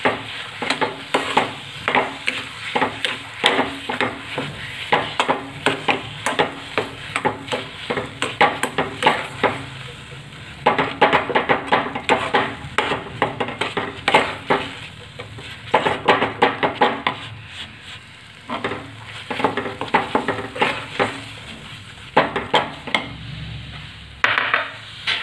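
Steel spoon scraping and knocking against a steel kadhai as sugar is stirred into wet besan halwa. It comes in runs of quick strokes with a few short pauses.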